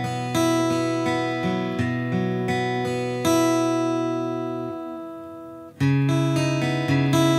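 Taylor 714ce acoustic guitar being played, notes picked in a steady pattern. About three seconds in, a chord is left to ring and slowly fade. Fresh notes are struck near the end.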